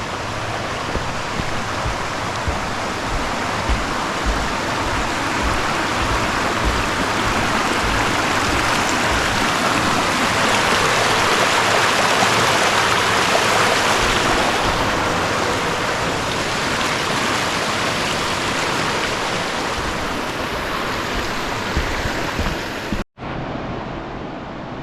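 Mountain creek rushing, swelling to its loudest about halfway through and then easing off, with scattered dull low thumps. The sound drops out briefly near the end, and a quieter, thinner rush follows.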